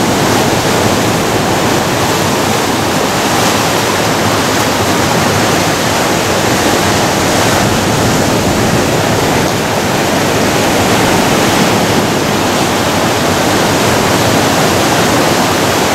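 Ocean surf breaking and washing in over the shore rocks, a loud, steady rush of water.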